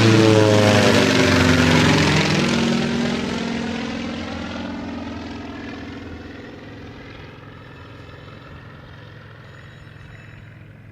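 Aircraft engine sound as an aircraft flies past low: loudest in the first couple of seconds, dropping in pitch as it goes by, then fading steadily as it flies away.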